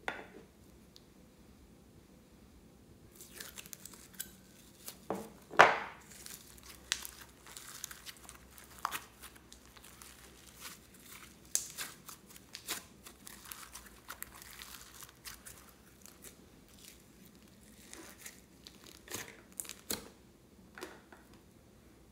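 Hands stretching and squeezing soft orange slime, with sticky crackles, small pops and tearing sounds as it pulls apart, after a few quiet seconds. The loudest pop comes about five and a half seconds in.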